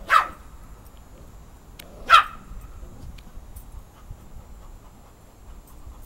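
A dog barking twice: two short barks about two seconds apart, the second slightly louder.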